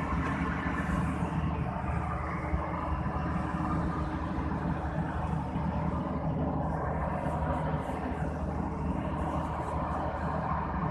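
Hydraulic excavator's diesel engine running steadily, a dense low hum at an even pitch.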